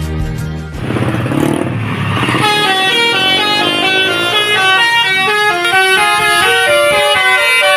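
A bus's Basuri telolet multi-tone air horn playing a tune: after a rush of noise in the first couple of seconds, a quick run of short, stepped horn notes, each about a quarter second long.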